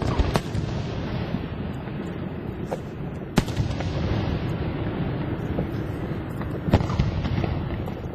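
Aerial fireworks shells bursting in sharp bangs: one right at the start with another just after, one about three and a half seconds in and one about seven seconds in. Smaller pops fall between them over a continuous low rumble.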